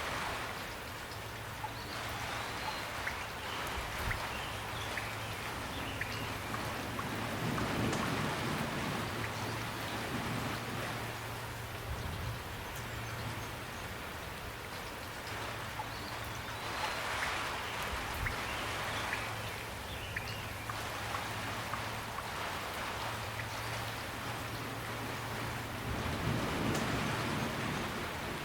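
Steady rain falling, with scattered individual drops ticking. It swells gently in strength a few times.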